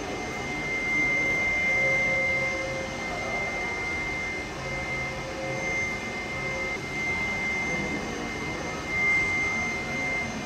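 Label printing machine with UV, laminating and die-cutting units running: a steady mechanical hum with a constant high whine over it.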